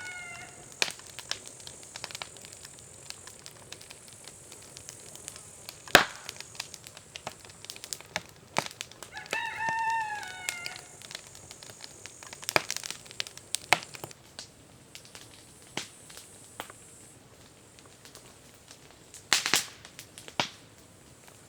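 A rooster crowing: the tail of one crow right at the start and a full crow about nine seconds in, ending on a falling note. Scattered sharp clicks and cracks run through it, and a steady high hiss stops about three-quarters of the way through.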